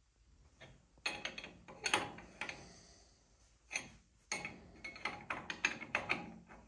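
An 11/16 wrench clicking and clinking against steel hydraulic hose fittings as they are snugged, in two runs of quick metallic taps.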